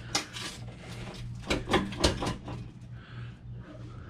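Irregular clunks, knocks and scraping of a Jeep Wrangler JL's front bumper being worked loose and lifted off its frame mounts.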